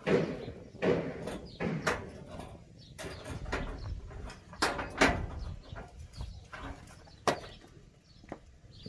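Metal parts of a truck wheel hub knocking and clunking as they are handled and fitted. The knocks are irregular, a sharp one about seven seconds in.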